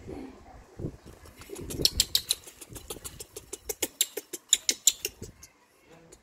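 Baby macaque giving a rapid run of short, sharp squeaks, several a second, starting about a second and a half in and stopping about a second before the end.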